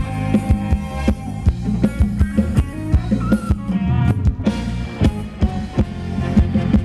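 Live band playing upbeat Thai ramwong dance music, electric guitar and drum kit over a steady beat.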